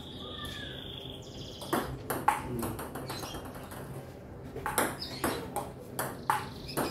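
Table tennis ball being hit and bouncing in a rally: sharp hollow clicks, a couple about half a second apart, then a run of five more after a short pause. A high thin steady tone sounds over the first couple of seconds.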